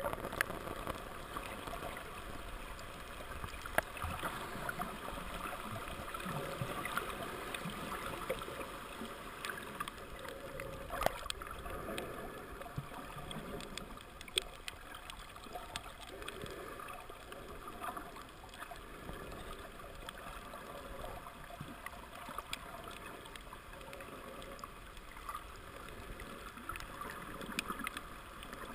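Underwater ambience picked up by a camera held below the surface: a steady muffled hiss of moving water, with a few faint clicks scattered through it.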